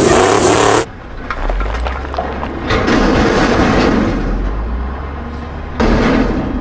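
Outro sound effects: a loud engine noise that cuts off sharply about a second in, then a low rumbling effect that swells and fades, and a sudden louder hit near the end.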